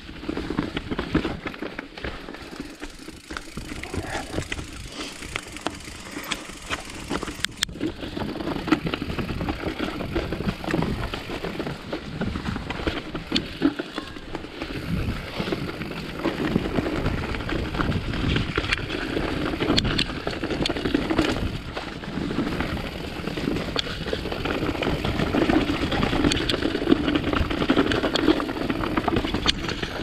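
Mountain bike descending rocky, leaf-strewn singletrack: tyres rolling over rocks and dry leaves and the bike rattling with many sharp clicks, mixed with wind noise on a chest-mounted GoPro's microphones. It gets louder from about halfway through.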